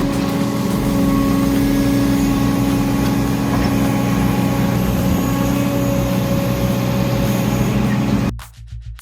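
Heavy machinery engine running steadily with a low, even drone, which cuts off abruptly about a second before the end.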